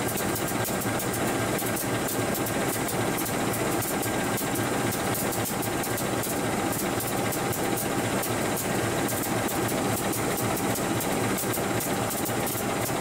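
Diesel locomotive of a ballast train idling steadily at the trackside, with many small clicks over the engine noise.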